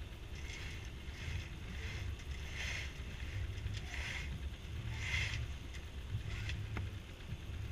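Headsail being hoisted on a C&C Mirage 24 sailboat: sailcloth rustling and halyard hauled in short repeated pulls about once a second. Under it, a low wind rumble on the microphone.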